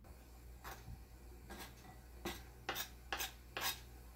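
Kitchen knife chopping cooked chicken on a cutting board, then scraping it off the board into a bowl: about six sharp knocks, spaced irregularly half a second to a second apart.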